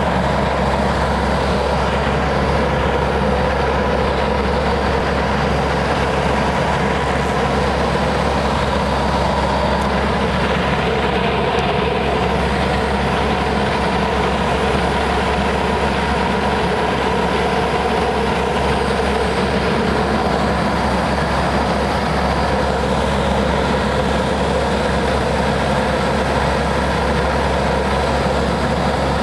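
Steady drone of a C-130H Hercules's Allison T56 turboprop engines and propellers in flight, heard from inside the aircraft, with several constant hums and no change in pitch or loudness.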